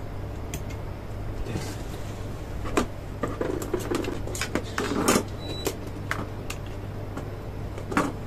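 Hands handling wires and push-on connectors at a small refrigeration compressor's terminal lugs: scattered clicks, taps and rustles, busiest in the middle, over a steady low hum.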